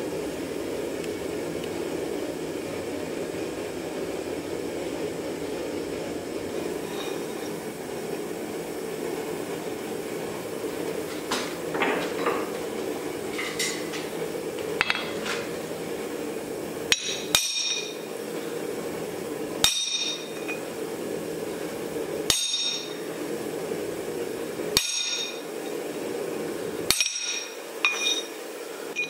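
Hammer striking a hand punch held on a cold steel plate on the anvil: about seven ringing metal blows, a couple of seconds apart, starting a little past halfway, after a few lighter clinks. A steady low rushing noise runs underneath.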